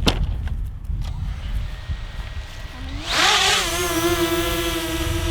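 Small brushless quadcopter's motors spinning up for takeoff about three seconds in: a rising whine with a brief rush of air, then a steady whine. A click at the start and a low rumble run under it.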